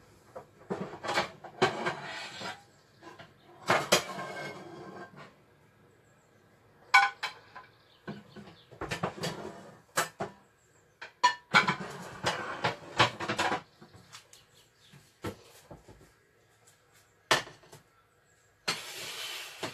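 Pots and pans clanking and rattling as a frying pan is pulled out from among other cookware, in irregular bunches of knocks and scrapes.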